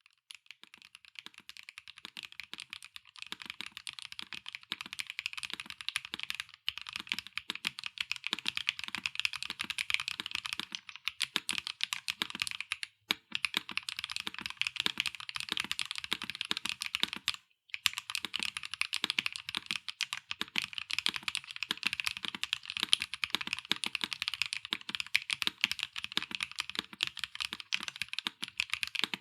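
Fast, continuous typing on a Bauer Lite gasket-mounted mechanical keyboard with HMX Glaze Jade linear switches, an aluminium plate, no foam and doubleshot PBT/ABS keycaps: a dense stream of keystroke clacks that breaks off briefly twice near the middle.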